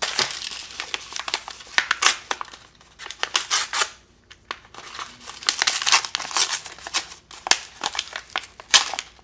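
Kraft-paper parts envelope crinkling and rustling in irregular crackles as it is handled and its flap pulled open, with a brief lull about four seconds in.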